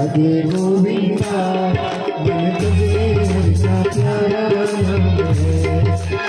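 A group of devotees singing Ramayan verses together, with a hand drum keeping the rhythm, amplified through a loudspeaker.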